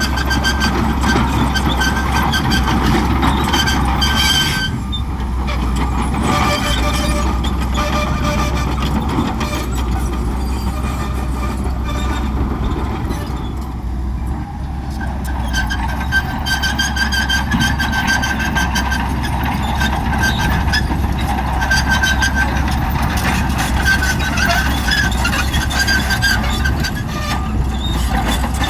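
Shantui bulldozer's diesel engine running steadily under load, with a high-pitched whine on top that fades out briefly twice.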